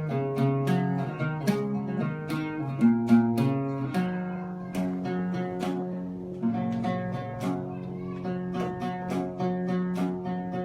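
Instrumental music from a strummed, guitar-like plucked string instrument playing chords on a steady beat of about two strokes a second.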